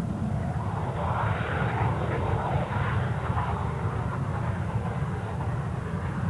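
Airliner's engines running loud as it passes close by: a steady deep rumble under a rushing hiss that swells a second or two in.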